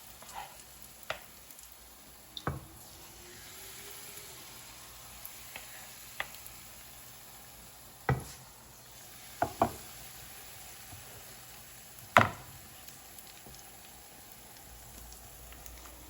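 Salt fish fritters frying in hot oil with a faint steady sizzle, broken by about ten sharp knocks, the loudest about twelve seconds in.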